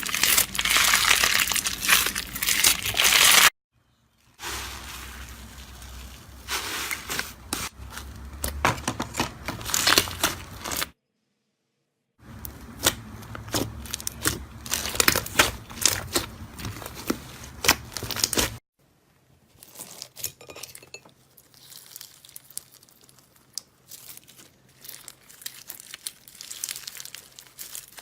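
Slime being squeezed and pressed by hand, with dense crackling, popping and crinkling. It comes in three separate clips, broken by two short dead-silent cuts, about four seconds in and about eleven seconds in. The last clip, from near the middle onward, is quieter.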